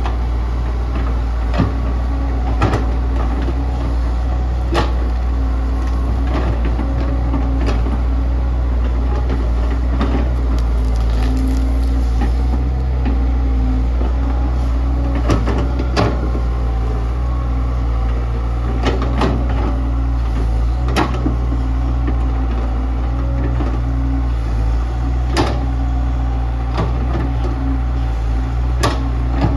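Kobelco SK100-1 excavator's diesel engine running steadily, with irregular sharp knocks and clanks every second or few as it works.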